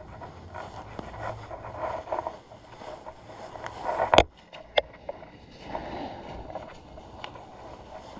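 Shuffling and rustling of clothing and shoes with handling noise as sneakers are put on, with a sharp knock about four seconds in and a smaller click just after.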